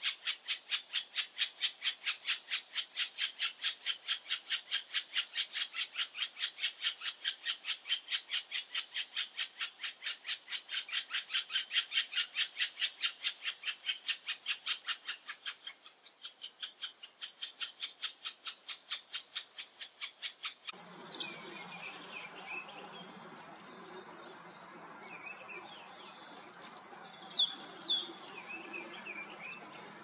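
Black woodpecker nestlings begging at the nest hole: a fast, even run of raspy calls, several a second, that stops abruptly about two-thirds of the way through. After that comes a fainter, different sound with a few high whistling glides.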